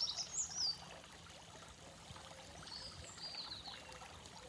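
Tiered stone garden fountain trickling and splashing steadily, with birds chirping over it: a few short high notes near the start and again around the middle.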